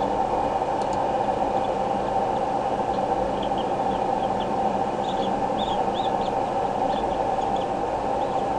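Steady rushing noise throughout, with short high bird chirps scattered through the middle, several a second for a few seconds.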